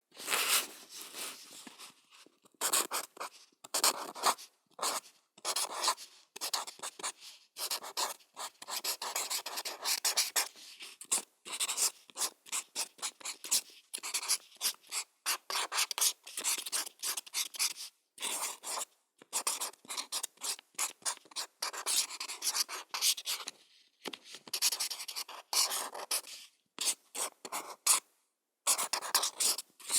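Felt tip pen writing on paper: a run of short, dry scratching strokes, broken by brief pauses between words and lifts of the pen.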